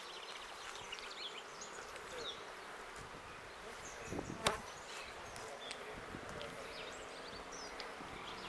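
Honeybees buzzing around hives, a steady hum. A single sharp knock about four and a half seconds in.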